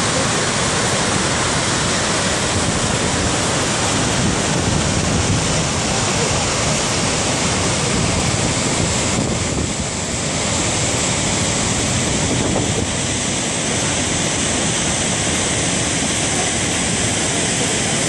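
Large waterfall plunging into a rocky gorge: a loud, steady rush of falling whitewater, dipping slightly about halfway through.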